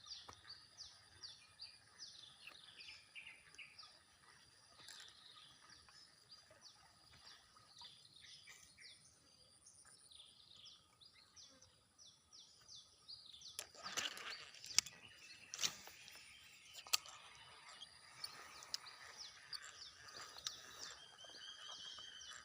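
Birds chirping with many quick, high, falling calls over a faint outdoor background. About halfway through, a cluster of sharp clicks and knocks.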